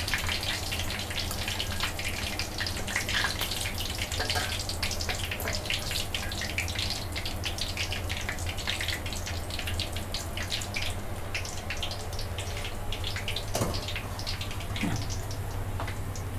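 Chicken wings crackling and sizzling in a wok of hot oil as they are lifted out with a wire strainer, a dense patter of small pops that thins out in the last few seconds. A steady low hum runs underneath.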